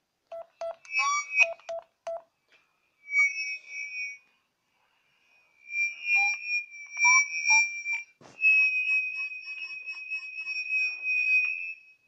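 Baby monitor speaker putting out strange electronic noises: a quick run of short beeps, then high whistling tones broken by little rising chirps. A sharp click comes a little after eight seconds, followed by a steady high tone with a regular chirping flutter that stops at the end.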